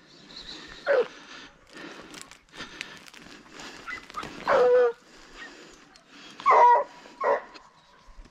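Hunting dogs giving voice in a rabbit chase: a few sharp yelps that fall in pitch, the longest about halfway through.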